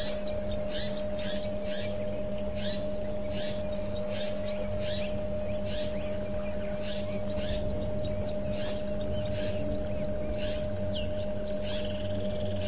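Wild birds calling: short high calls repeating about twice a second, and near the end a whistled call that slides downward. A steady low hum runs underneath.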